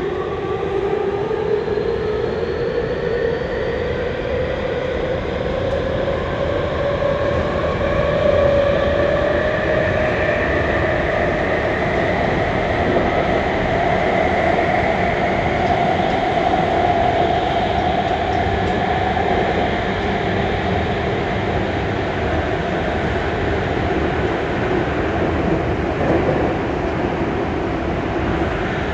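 Minatomirai Railway Y500 series electric train running through a tunnel, heard from inside the car. Its motor whine climbs steadily in pitch over the first fifteen or so seconds as the train gathers speed, then levels off and eases slightly, over a constant rumble of wheels on rail.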